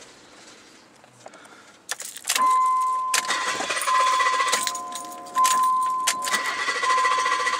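Inside a Mazda MX-6 with the engine off after stalling: a steady high warning buzzer starts about two seconds in and sounds on and off, over keys jangling and clicking.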